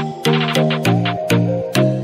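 Background music with a steady beat: percussive hits about twice a second over held chords.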